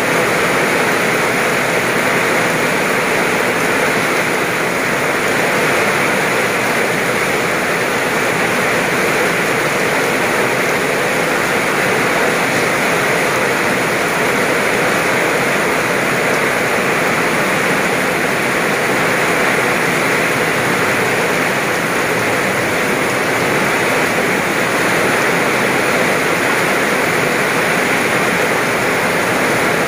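Heavy rain pouring onto a wet road and grass, a loud, steady, even hiss.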